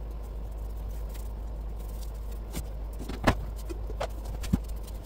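Plastic gallon jugs and measuring cups being handled and set down on a wooden bench: a few short knocks, the loudest about three seconds in, over a steady low hum.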